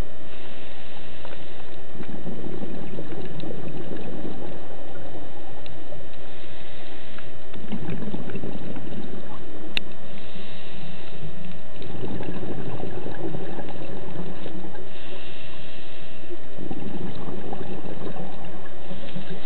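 Scuba regulator breathing heard underwater: a short hissing inhale followed by a longer rush of exhaled bubbles, the cycle repeating about every four to five seconds.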